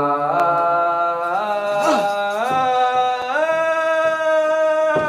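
A man singing one long held 'ah~' into a handheld microphone, the note climbing in about four steps with a slide up between each, then cutting off near the end.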